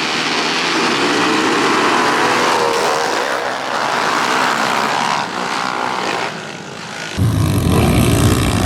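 Small-displacement pit bike engines revving and accelerating hard, several at once, at the start of a race. About seven seconds in the sound changes abruptly to a louder, deeper rumble.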